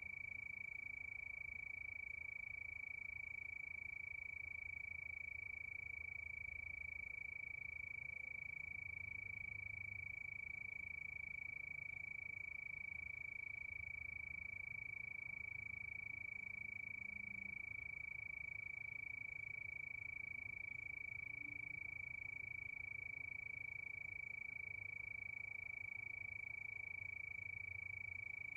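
A chorus of crickets blending into one steady, unbroken high trill, with a faint low rumble underneath.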